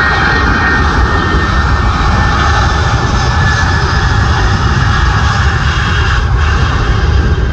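Airbus A330 jet's engines running as it rolls along the runway close by: a loud, steady rush of jet noise over a heavy low rumble, with a high whine that sinks slowly in pitch.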